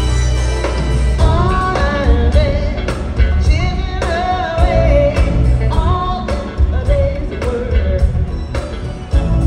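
Live R&B/funk band (drum kit, congas, bass and guitar) playing with a woman singing lead, the voice coming in about a second in. Heard from the stands of an arena.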